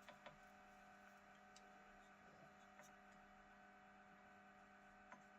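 Near silence: a faint steady electrical hum, with a few faint light clicks near the start and again about five seconds in.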